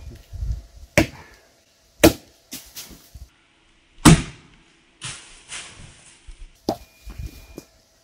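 Hatchet blows at the felling cut of a large spruce: about five sharp knocks spaced a second or more apart, the loudest two about two and four seconds in.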